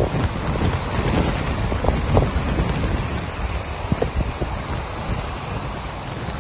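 Surf breaking and washing up on a sandy beach, with gusty wind rumbling on the microphone.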